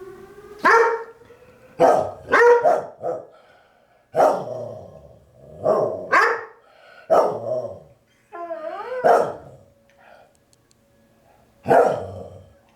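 Dogs barking in loud, sharp barks about every second or so, with one wavering, howl-like call about two thirds of the way in. Underneath, a tornado siren's tone rises at the start and later holds steady, faint.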